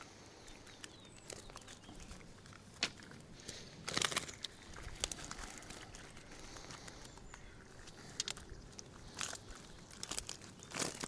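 Mesh fishing keepnet being handled: scattered rustles and light clicks, with a louder burst of rustling about four seconds in and again near the end.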